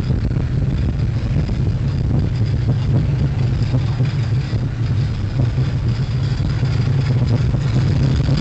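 Gemini roller coaster train running at speed on tubular steel track: a loud, steady low drone of the wheels on the rails, with rushing noise above it.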